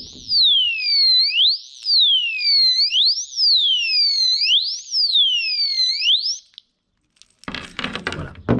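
Motion-sensing alarm bike lock sounding its full alarm: a loud electronic siren sweeping up and down in pitch about once a second, the second, stronger stage that it sets off when someone keeps moving the bike or its bags. The siren stops after about six and a half seconds, and clattering knocks of handling follow near the end.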